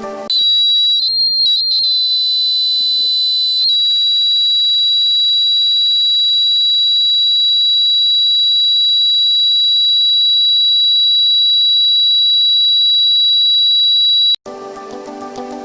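Homemade fire alarm's buzzer sounding one loud, high-pitched tone. The pitch wavers and jumps for the first few seconds, then holds steady until the tone cuts off suddenly about fourteen seconds in.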